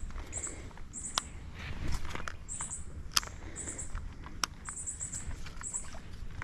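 Short trains of rapid, high-pitched chirps from an unseen animal, repeating about once a second, with a few sharp clicks and a low rumble underneath.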